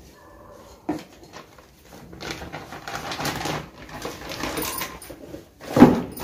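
A clear plastic bag rustling and crinkling as a chrome faucet is handled and packed into it. A knock comes about a second in, and a louder rustle comes near the end.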